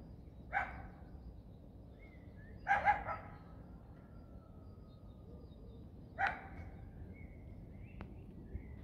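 A dog barking: three short barks a few seconds apart, the second a quick double, with faint high bird calls in between.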